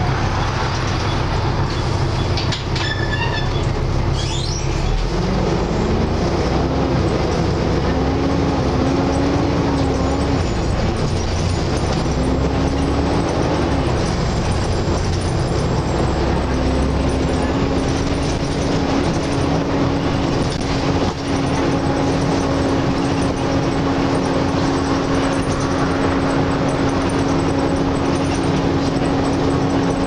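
Volvo B7TL double-decker bus under way, heard from inside: a steady engine drone and road noise with a loud hoover-like whine. The whine rises in pitch a few seconds in, wavers, then holds steady from about halfway.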